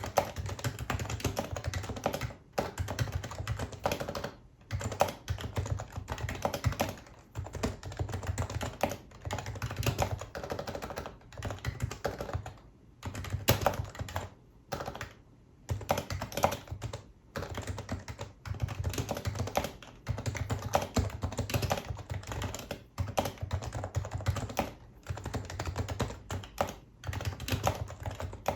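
Steady typing on a Happy Hacking Keyboard Professional HYBRID Type-S, whose electrostatic capacitive (Topre) key switches give soft, dampened keystrokes. It is a dense, fast run of key presses, broken by several brief pauses, most of them around the middle.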